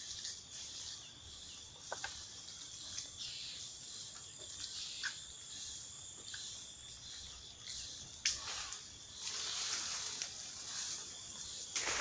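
Forest ambience: a steady high-pitched insect chorus, with a few sharp snaps and, about two-thirds of the way through, a spell of rustling leaves and branches.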